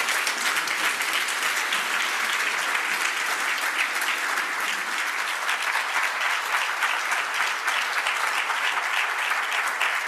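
Audience applauding: dense, steady clapping from many people.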